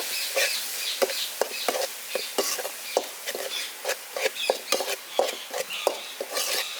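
Spatula stirring and scraping onion-tomato masala with freshly added spice powders in a hot kadai: irregular clacks against the pan, several a second, over a steady sizzle.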